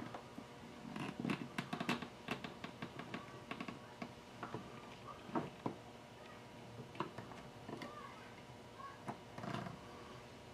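Slow work on a toggle-clamp pen press: scattered light clicks and knocks, with a few short faint squeaks, as a small spacer is pressed into a wooden pen barrel.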